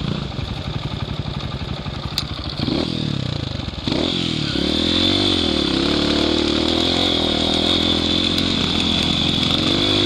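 Dirt bike engine pulling up a steep, rough, rocky hill climb, its revs rising and falling with the throttle. It gets louder about four seconds in as the rider opens it up.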